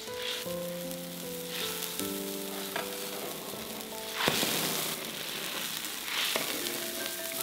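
Fish slices and broth for pickled fish boiling hard in a wok, a steady bubbling sizzle, with a ladle stirring and a louder rush of sizzle about four seconds in. Gentle melodic background music plays over it.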